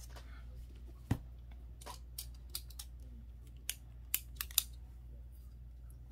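Desk handling sounds from a book and a pen: a soft knock about a second in, then a scatter of small sharp clicks between two and five seconds as a pen is picked up and readied for writing.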